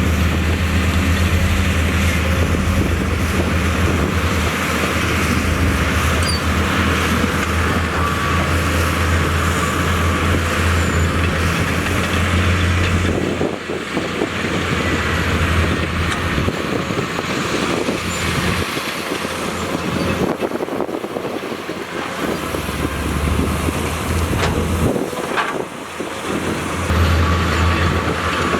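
Diesel engine of heavy earthmoving equipment running under load, a loud low drone that rises and falls as the machine works. Past the middle the low drone drops away briefly twice.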